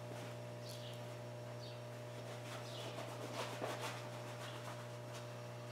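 Quiet room tone: a steady low electrical hum, with a few faint light clicks and short faint high chirps.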